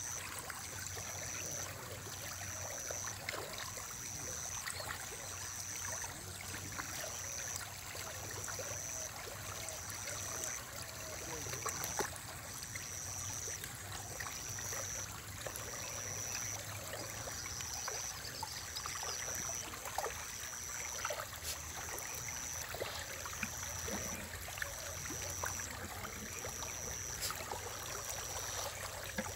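Steady trickling water at a fish pond, with scattered small ticks and splashes as feed pellets land and fish take them at the surface. A faint high-pitched beep repeats about every one and a half seconds throughout.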